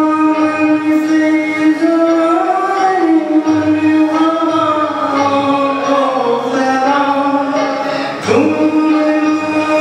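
A man singing into a microphone, holding long drawn-out notes that slide slowly up and down in pitch; a new phrase begins with a rising attack near the end.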